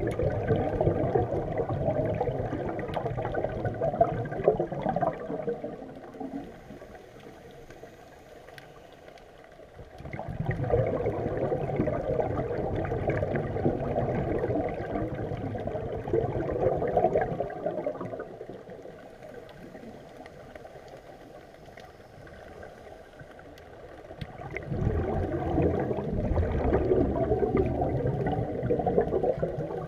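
A scuba diver's exhaled air bubbling out of the regulator, heard underwater. There are three long bursts of bubbling, roughly every twelve seconds, with quieter gaps between breaths.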